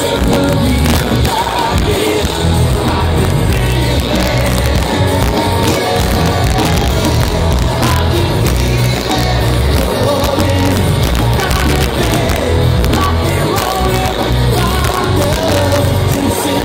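Rock band playing live through a stadium PA: a lead vocal over electric guitar, bass and drums, loud with a heavy, boomy low end, heard from within the crowd.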